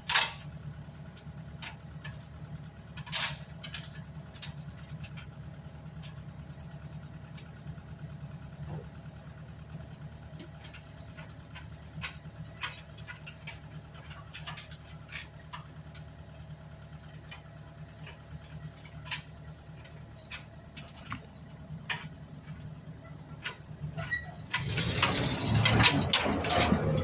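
An engine idling steadily with scattered sharp clicks. A much louder rush of noise comes in near the end.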